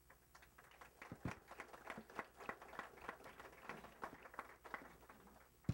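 Faint, scattered applause from a small audience: irregular light claps, several a second.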